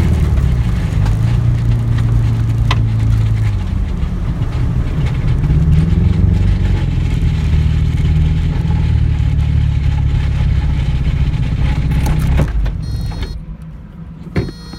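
Nissan B13 Sentra SE-R, heard from inside the car, just after its high-mileage SR20DE engine blew while decelerating: a loud, uneven low rumble with rattling as the car slows. The rumble drops away about twelve seconds in, and a single click and faint electronic beeps follow near the end.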